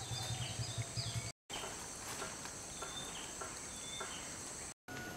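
Steady high-pitched insect drone with short, falling bird chirps over it. A low rumble runs in the first second or so, and the sound cuts out completely for an instant twice.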